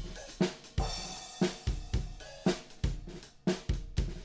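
Recorded drum kit playing back a steady beat: a replaced kick drum sample blended with the overhead mics, plus snare, hi-hat and cymbals, with hits about twice a second.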